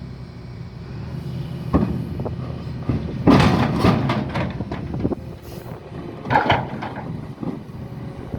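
Heavy diesel machinery running steadily, with loud metallic clanks and scraping: one knock about two seconds in, a dense run of clanks from about three to five seconds, and another burst near six and a half seconds.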